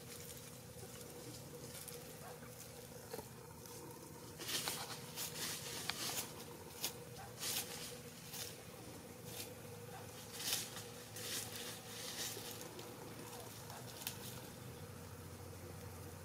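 Dry leaf litter rustling and crackling in short, irregular bursts as a Silver Sebright bantam hen pecks and scratches through it, starting about four seconds in and dying away near the end. A faint steady hum runs underneath.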